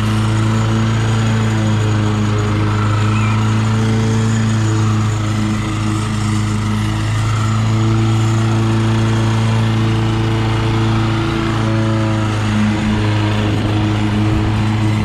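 Toro Commercial 21-inch walk-behind mower's engine running at a steady speed.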